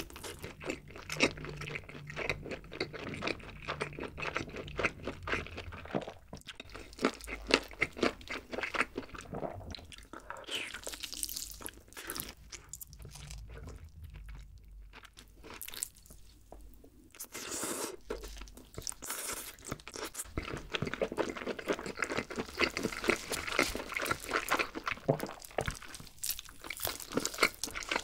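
Close-miked eating of a glazed grilled chicken leg: biting, chewing and tearing the meat, with a dense run of wet clicks and crunches that eases off in the middle and picks up again in the last third.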